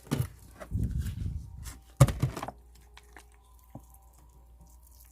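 Handling noises of planting succulents in a pot: uneven rustling and soft knocks in the first second and a half, and one sharp, loud hit about two seconds in. After that it goes nearly quiet, with a faint steady hum.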